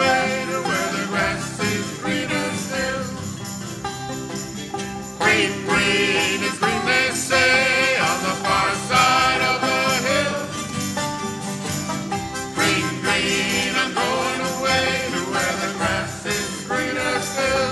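Folk band playing, with guitars, banjo and upright bass.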